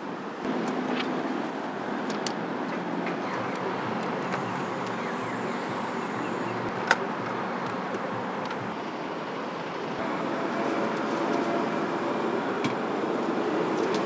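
Busy street ambience: steady traffic noise, with scattered light clicks and one sharp click about seven seconds in.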